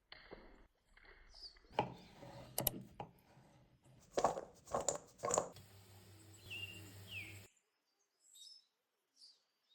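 Several sharp knocks and clatters, like utensils or dishes being handled, with a few short bird chirps near the end, and then a quiet stretch.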